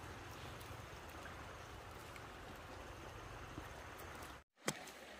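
Steady rush of flowing stream water, cut off abruptly about four and a half seconds in, followed by a sharp click.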